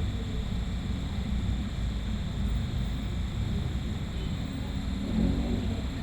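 Steady low rumble and hum of room noise, with a faint steady high whine and a muffled voice briefly about five seconds in.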